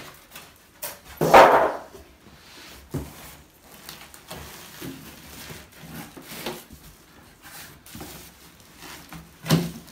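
Unboxing noise: a styrofoam packing insert rubbing and scraping against a cardboard box as it is lifted out and set down, loudest about a second in. Softer rustles and knocks of cardboard and plastic wrap follow as the boxed microwave is handled.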